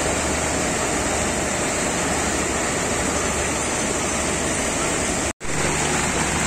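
Floodwater rushing and churning over a ledge, a steady wash of noise. It cuts out for an instant about five seconds in, then steady rushing water resumes.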